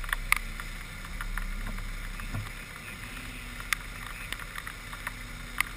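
Rain drops tapping irregularly on the car and the camera housing, with a few sharper ticks, over a steady low rumble from the stationary car idling.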